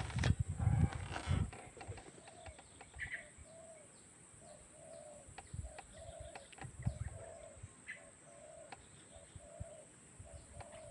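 Spotted dove cooing: a long run of short, low coo notes in an even rhythm, with low rumbling thumps near the start and again about seven seconds in.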